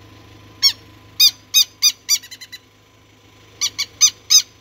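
Adult southern lapwings (quero-quero) giving loud, harsh alarm calls: one call, then a run of four with a quick stutter of shorter notes, and another run of four near the end. These are the parents scolding intruders close to their chicks.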